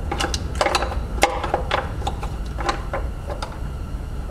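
Irregular small clicks and taps as the oil sensor's wiring connector and its mounting clip on the oil pan are worked and pried loose with a clip removal tool. A steady low hum runs underneath.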